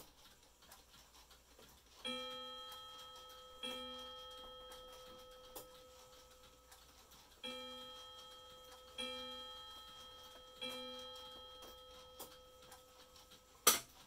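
Plymouth mantel clock striking: five strokes of the same ringing tone, each left to die away, mostly about a second and a half apart with a longer pause after the second, set off as its hands are turned. The movement ticks faintly underneath, and near the end a loud sharp click comes as the glass bezel is snapped shut.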